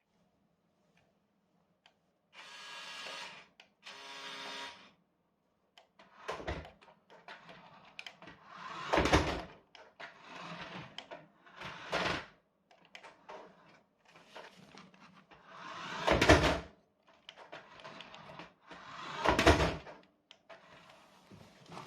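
Small electric motor of a radio-controlled toy car whirring in two short bursts, then a series of bumps and scrapes, about one every three seconds.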